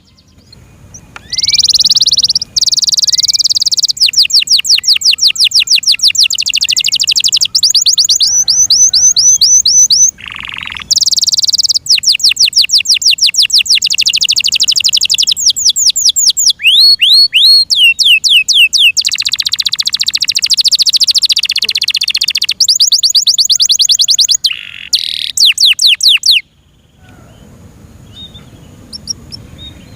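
F1 Yorkshire canary singing loudly: long phrases of fast trilled, repeated notes with short pauses between them. The song stops near the end.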